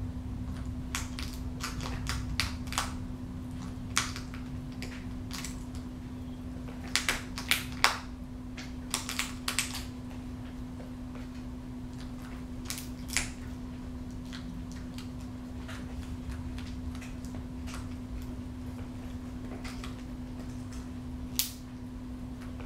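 Peregrine falcon feeding on quail meat: irregular sharp clicks and snaps of its beak tearing at meat and bone, some in quick runs of three or four, over a steady low hum.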